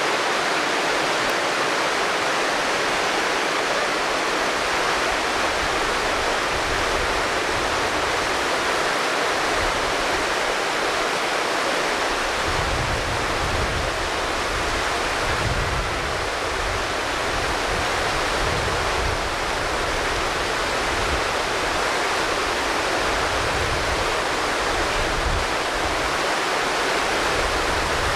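Rushing water of a fast stream, a steady continuous rush. From about twelve seconds in, low irregular rumbles come and go beneath it.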